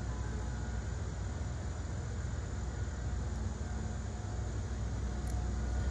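Steady low rumble of distant engine noise, with a faint click near the end as small bonsai scissors snip a Dawn Redwood shoot.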